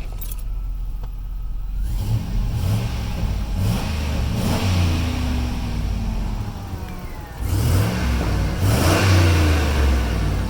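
GMC Sierra 2500HD pickup engine revving in two bursts, the first about two seconds in and a louder one near the end, the pitch rising and falling with each.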